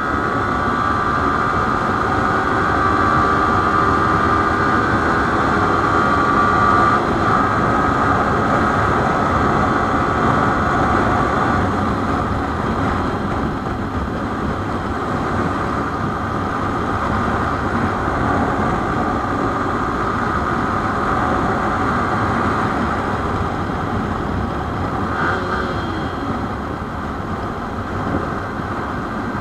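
Yamaha sport motorcycle cruising at about 90 km/h: a steady high engine note under constant wind rush.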